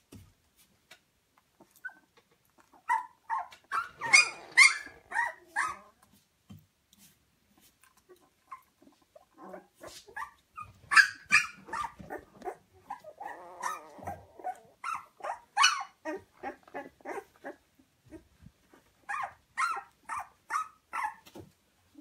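Two-week-old puppies whimpering and squealing in quick strings of short, high-pitched cries, in three bouts with pauses between.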